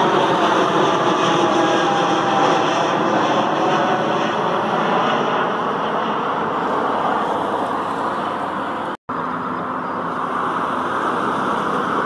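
Narrow-body airliner passing close by, its engine noise loud, with tones sliding down in pitch over the first few seconds as it goes past. The sound cuts out for an instant about nine seconds in, then steady, slightly quieter aircraft noise carries on.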